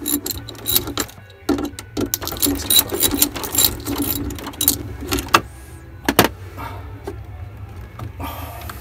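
Socket ratchet clicking in quick runs, with metal clinks, as a nut on the rotary steering helm's cable fitting is worked loose; two sharp clicks about six seconds in, then it goes quieter. A steady low hum runs underneath.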